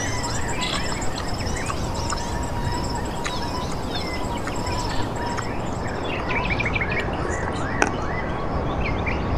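Several birds chirping and calling over low outdoor background noise and a high, steady pulsing trill. Two brief sharp clicks come about five and eight seconds in.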